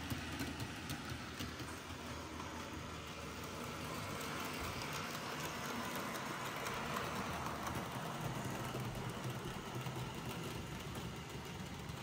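Roco model ÖBB 1670 electric locomotive running with a rake of beer wagons: a steady motor hum and the rattle of small wheels on the track, with faint clicks.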